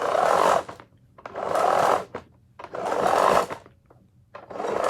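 Power cord of a Hoover Deluxe Elite Rewind vacuum being pulled out of its cord-rewind reel, hand over hand. There are four strokes, each a noisy pull of under a second, about one and a half seconds apart.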